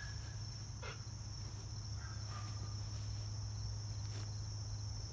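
Steady high-pitched insect chirring over a low steady hum.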